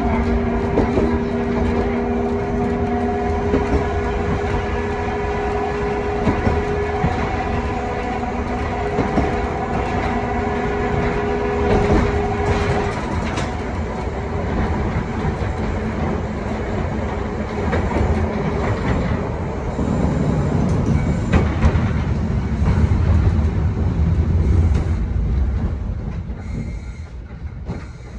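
1928 Kawasaki-built wooden tram with nose-suspended traction motors running on its line. The motors give a steady whine that stops about halfway through, over running noise, wheel clicks on the rails and a low rumble. The whole sound grows quieter near the end.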